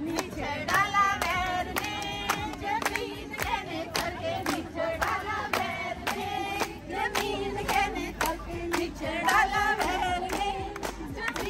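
Group of women singing together while the crowd claps a steady rhythm to keep time for dancing.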